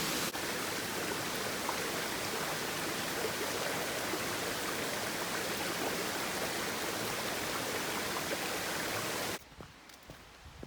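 Small waterfall spilling over an old sawmill dam, running low after little rain: a steady rush of falling water that cuts off abruptly near the end.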